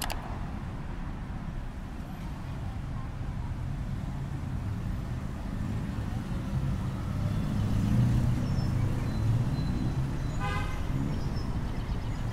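Busy city road traffic: a steady low rumble of engines and tyres, with a short car horn toot about ten and a half seconds in.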